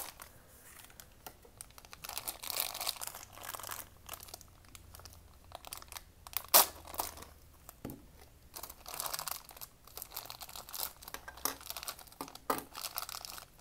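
Clear plastic parts bags crinkling and rustling as they are handled and opened, with a sharp snip of a cutting tool about six and a half seconds in.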